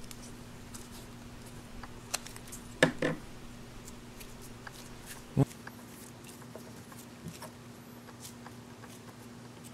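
Faint handling sounds as hands knead Play-Doh and move plastic and silicone toy pieces on a table: scattered small taps and clicks, with a few louder knocks about three and five seconds in, over a steady low hum.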